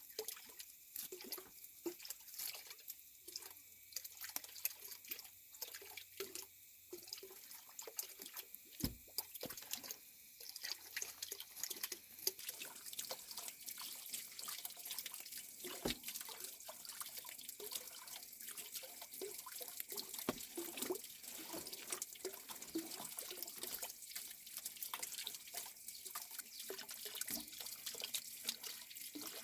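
Water dripping and splashing in many small, irregular drops, with an occasional sharper knock.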